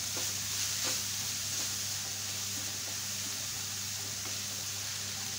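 Grated carrot and beetroot frying in oil in a pan over low heat, a steady sizzling hiss, with a couple of faint scrapes of a wooden spatula in the first second.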